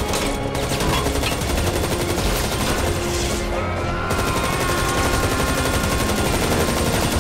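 Sustained automatic gunfire, shots in rapid succession without a break, with film score music underneath.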